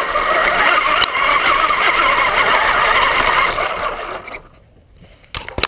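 Traxxas RC car's motor and drivetrain running, with tyres on dirt, heard from a camera mounted on the car; it fades out about four seconds in, followed by a few sharp knocks near the end.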